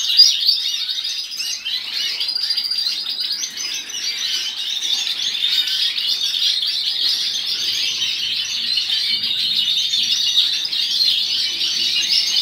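A room full of caged songbirds chirping and singing all at once, a dense unbroken chorus of high chirps and trills from many birds.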